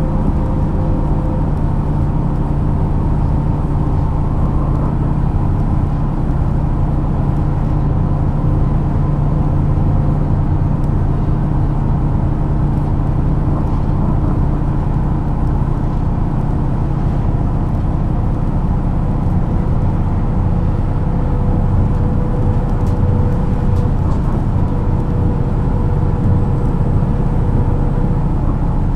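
Diesel engine of a MAN NG 313 articulated city bus idling steadily while the bus stands at a stop, a low even hum with a faint higher tone in the latter part.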